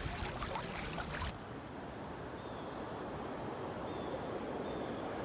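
Creek water moving and splashing around a kayak, with a few sharp paddle splashes in the first second or so, then a steady wash of flowing water.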